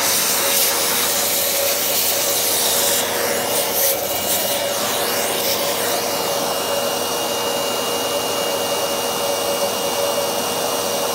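Vacuum cleaner running steadily with a nozzle held over an opened copier drum unit, a loud hiss over a steady hum. The hiss shifts a few seconds in as the nozzle is moved over the unit.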